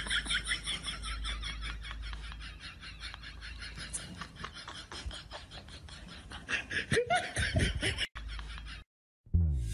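A person laughing hard in a long run of quick, repeated bursts, then a short falling vocal sound about seven seconds in. The sound cuts off abruptly shortly before the end.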